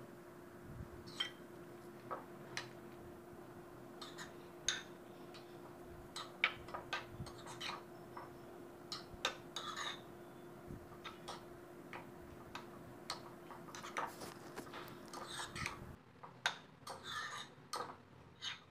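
Steel spoon stirring a wet mix of chopped mutton and beaten egg in a small bowl: light, irregular clinks of the spoon against the bowl with soft scraping, several a second at times.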